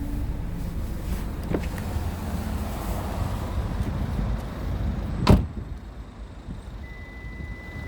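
Low rumble of a car, a few light clicks, then a car door shutting with one sharp knock about five seconds in, after which it is quieter; a steady high beep starts near the end.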